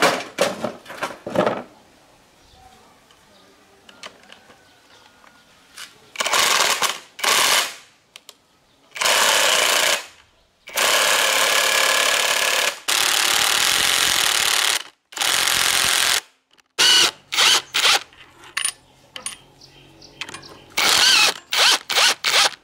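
Impact wrench hammering on the bolts of a differential carrier, in several loud bursts of one to two seconds each, then a run of shorter bursts near the end. A few sharp metal clinks of tools being handled come at the very start.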